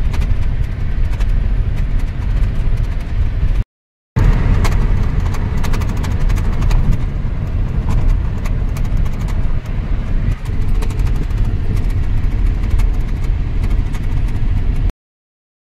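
Road and engine noise inside a moving car's cabin: a steady, loud low rumble with many small clicks and rattles over it. The sound drops out briefly just before four seconds in and cuts off abruptly near the end.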